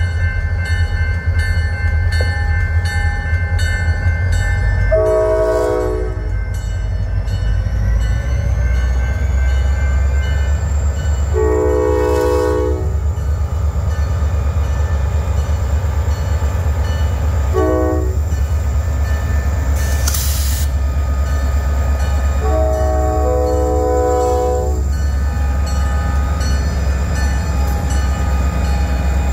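Diesel freight locomotive's air horn sounding the grade-crossing signal: long, long, short, long. Under it is the steady low rumble of the passing train.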